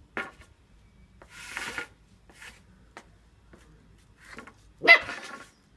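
A broom scraping and rustling in short, irregular scratchy bursts as a German Shepherd puppy plays with it, the loudest about five seconds in.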